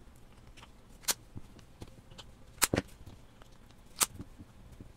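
Sharp clicks of hard plastic from small battery cases and a battery charging hub being handled and set out: one about a second in, two in quick succession near the middle, and one near the end.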